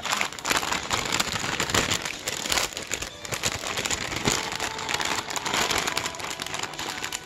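Plastic bag of fresh rice noodles crinkling loudly as it is handled, a dense run of irregular crackles.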